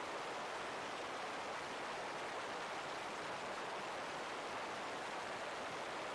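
Steady rush of wind noise from air streaming past a 360 camera mounted under the wing of a DA-20 light aircraft in flight, even and unchanging, with no distinct engine note.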